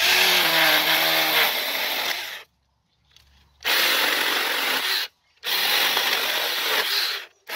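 Battery-powered 24 V mini chainsaw running and cutting into a branch, in three runs of one to two and a half seconds with short silent breaks between them. It is working again after its battery minus terminal was re-soldered.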